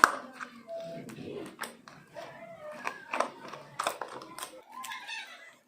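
Slime mixed with shaving foam and mehndi cone paste being squeezed and kneaded by hand, giving irregular wet sticky clicks and pops, the loudest right at the start.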